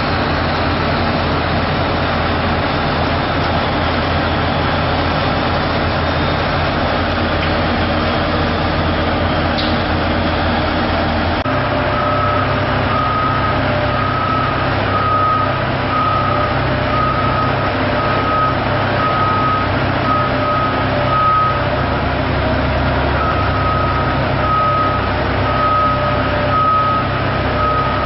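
Heavy vehicle engine running with a steady low rumble that changes abruptly about a third of the way through. After that a reversing alarm beeps about once a second, stopping briefly and then starting again.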